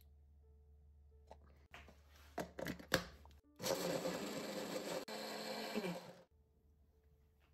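Braun hand-blender chopper running for about two and a half seconds with a brief break in the middle, grinding gingerbread cookies and cream cheese in its plastic bowl. Before it starts there are a few sharp clicks and knocks as the motor unit is fitted onto the bowl.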